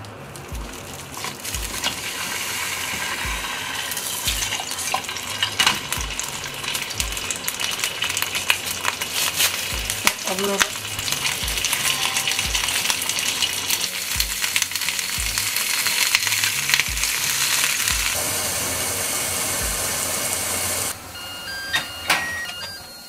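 Frozen salmon fillet, still crusted with ice, sizzling and spitting hard in hot oil in a square frying pan under a mesh splatter guard. The frying sound cuts off about 21 seconds in, and a rice cooker's electronic beeping tune starts just before the end.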